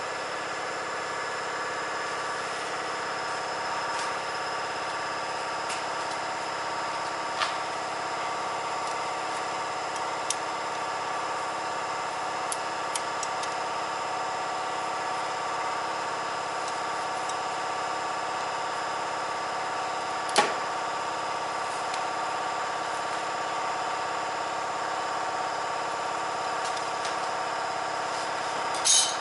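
Subaru Sambar truck engine idling steadily, with a few sharp knocks now and then.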